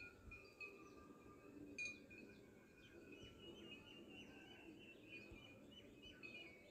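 Near silence: faint background room tone with soft, scattered high chirps.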